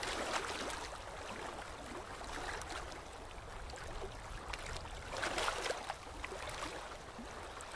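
Faint outdoor water background of shallow seawater: a low, even hiss that swells slightly about five seconds in.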